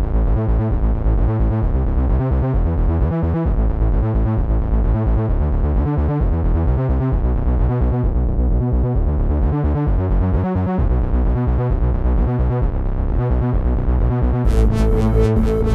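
Trance-style electronic music played on the ES-01 analog synthesizer rack extension: a pulsing, arpeggiated synth pattern over a steady low beat. Around eight seconds the sound darkens as a low-pass filter closes, then opens again. Near the end bright, high sounds join in.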